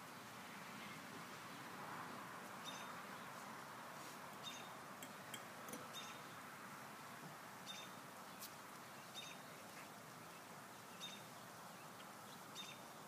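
Faint outdoor background with a bird giving short, high chirps, one about every second and a half.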